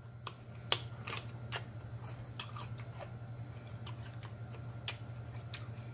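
Close-miked eating sounds: a person crunching and chewing a raw vegetable stick dipped in ranch, with irregular sharp crunches and mouth clicks over a steady low hum.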